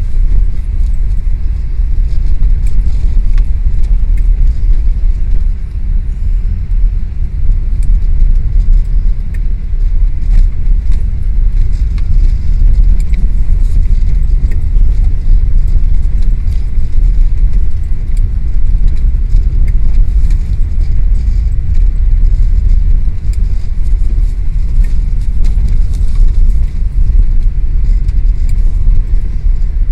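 Wind buffeting the microphone: a loud, steady low rumble that swells and dips slightly.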